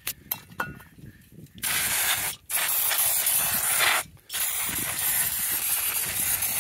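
Aerosol can of brake cleaner sprayed in three long hissing bursts onto a record changer's mechanism to strip the old grease. Light clicking of the mechanism being worked by hand comes before the first burst, a little under two seconds in.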